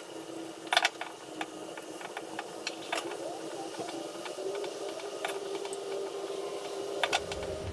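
Roll of tape being pulled off and wrapped around heavy jumper cable, giving irregular crackles and clicks, over a steady hum that rises slightly in pitch partway through.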